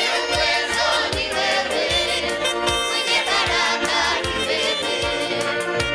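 A choir singing a Swahili gospel praise song over a band with a steady drum beat.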